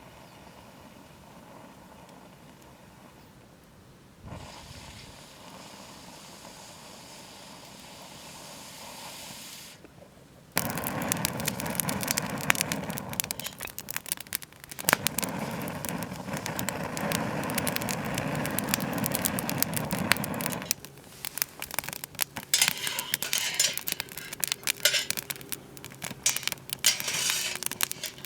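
Wood fire crackling and popping. A loud steady rush joins it about a third of the way in and cuts off sharply some ten seconds later, leaving the crackle and pops.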